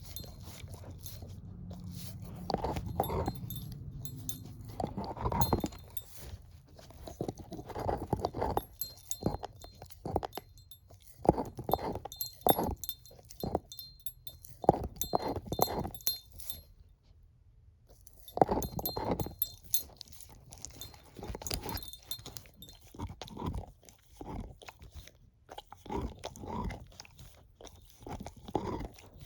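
Shepherd-mix dog chewing a bone, with loud, irregular crunches and a short pause a little past the middle. A low hum sits under the first few seconds.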